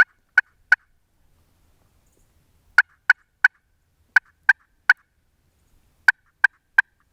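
Hand-operated turkey call yelping like a hen: four runs of about three short, sharp notes, each run a second or two after the last.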